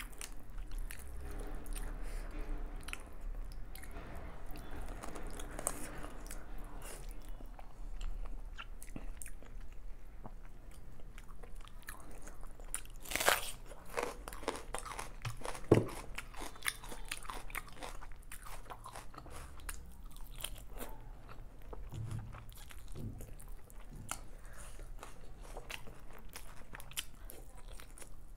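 Close-up mouth sounds of a person eating chicken biryani by hand: steady chewing with many small wet clicks and smacks. About 13 seconds in comes one loud crunchy bite into a whole raw red onion, followed a couple of seconds later by a short low thump.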